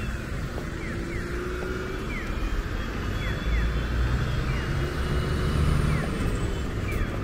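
Street traffic: a car's engine and tyres rumbling by, getting louder about four to six seconds in.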